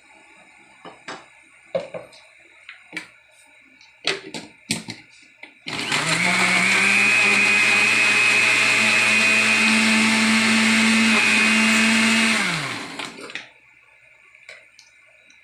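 Countertop blender blending a banana fruit shake: the motor runs loud and steady for about seven seconds, rising a little in pitch partway through, then winds down and stops. Before it starts, a few clicks and knocks as the jar is loaded and the lid put on.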